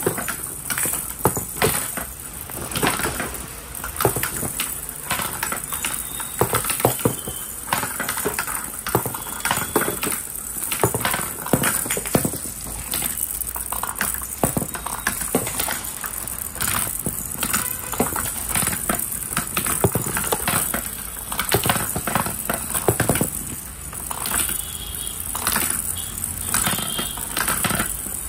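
Plastic balls rolling around the tiers of a plastic swirling ball-ramp toy and dropping from one level to the next. A constant run of light rattling clicks and knocks.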